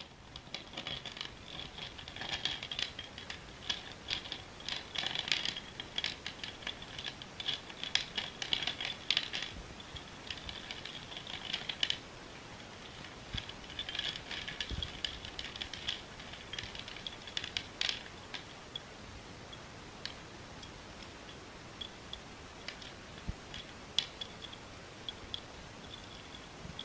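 School chalk crunching: a fast, crisp crackle of many small clicks, dense for most of the stretch, then thinning to scattered single cracks in the last few seconds.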